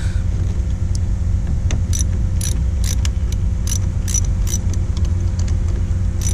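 A 5/16 wrench loosening the terminal nut on a car's 12-volt battery: small sharp metallic clicks, two or three a second, over a steady low rumble.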